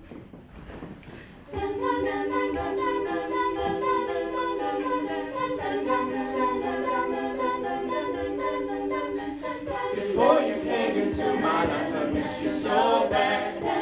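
Co-ed a cappella group singing sustained chords in wordless backing harmony, with vocal percussion ticking a steady beat. The voices come in about a second and a half in, and the harmony turns busier and moves more near the end.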